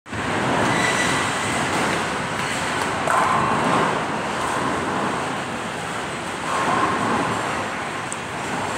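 Busy bowling alley din: a steady rumble of balls rolling down the lanes, swelling a little about three seconds in and again near seven seconds.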